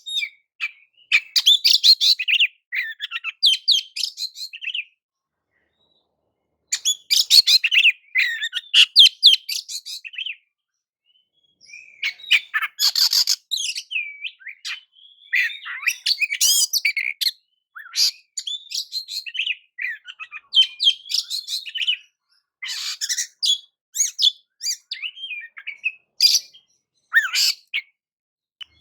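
Oriental magpie-robin (kacer) singing in fast, varied phrases of whistles and chirps, broken by two pauses of a couple of seconds.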